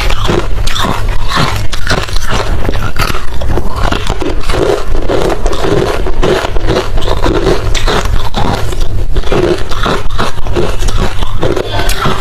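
Close-miked chewing of hard refrozen crushed ice: a dense, continuous run of loud crunches and cracks as the ice is bitten and ground between the teeth.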